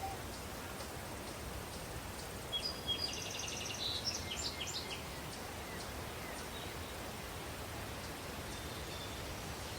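Daytime countryside ambience: a steady breeze with faint, regular cricket chirps, and a bird singing a short burst of song about two and a half seconds in.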